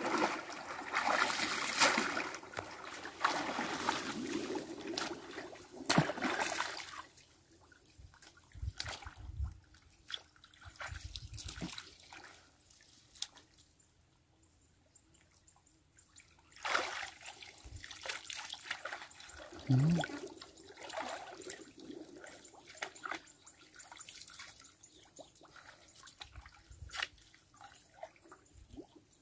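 Shallow water splashing and trickling as someone wades and stirs it, in uneven bursts. The splashing is busiest in the first several seconds, almost stops for a few seconds in the middle, then goes on in scattered splashes.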